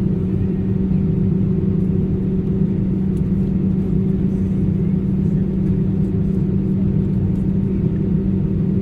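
Steady low rumble of a running vehicle or aircraft engine, with a constant low hum that does not change in pitch.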